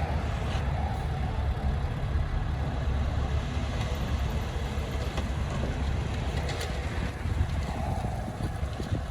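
Diesel engine of heavy earthmoving equipment running with a steady low rumble, with a few faint clicks over it.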